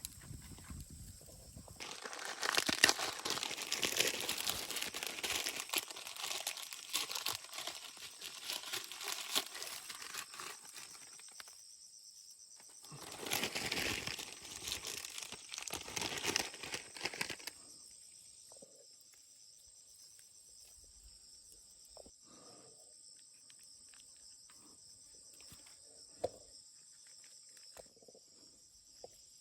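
Dry corn leaves and husks rustling and crackling in two long spells, the second shorter. Under them is a steady high chirring of insects, heard alone near the end.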